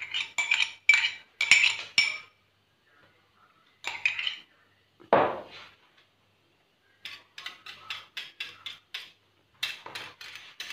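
Wire whisk beating a runny egg-and-milk mixture in a glass bowl, its wires clinking sharply against the glass in quick runs of strokes, with a short pause partway through. One duller knock comes about five seconds in.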